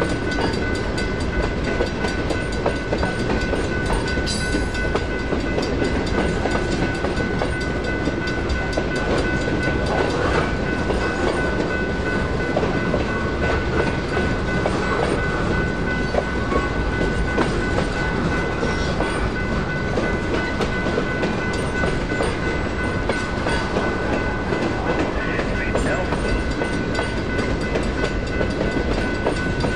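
Freight train rolling through a railroad crossing, its wheels clattering over the rails, while the crossing's warning bells ring steadily the whole time.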